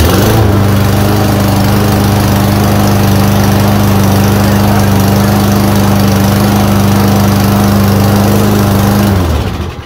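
Troy-Bilt TB210 walk-behind mower's small engine, just started, settling and running at a steady speed, then shut off about nine seconds in and winding down to a stop.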